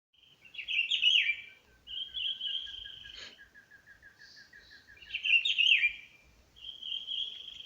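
Songbirds singing: one bird gives a phrase of quick warbled notes followed by a long buzzy trill, twice. Under it a second bird repeats a short note about five times a second for several seconds.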